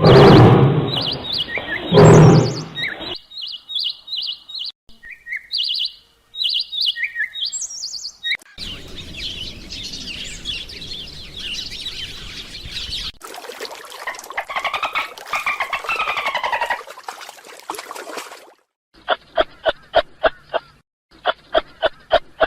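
A series of different animal calls, one after another, among them bird chirping in short separate notes. It opens with a loud noisy burst, has arching pitched calls in the middle, and ends with a run of quick pulsed notes.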